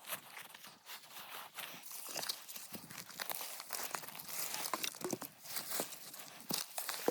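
Dry grass, twigs and brush crunching and rustling, with many irregular snaps and crackles, as vegetation is cleared by hand.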